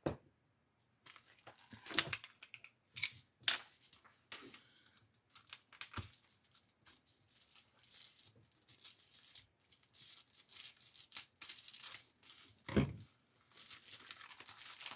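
Clear plastic wrapper of a paper pad being torn open and crinkled by hand: irregular crackling and rustling throughout, with a dull thump a couple of seconds before the end.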